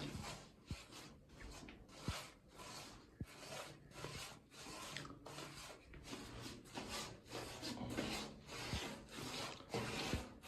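Thick cement coating being spread onto a concrete water-tank wall: repeated scraping strokes, roughly two a second, with an occasional sharp click.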